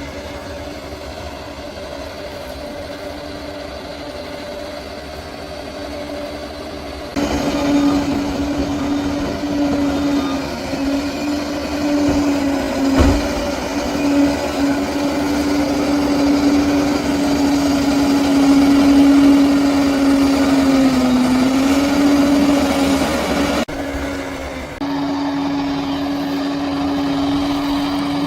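Bulldozer's diesel engine and drivetrain running steadily, with a strong steady whine over the engine. The sound jumps louder suddenly about a quarter of the way in, the whine dips briefly in pitch later on, and it drops off abruptly for about a second near the end.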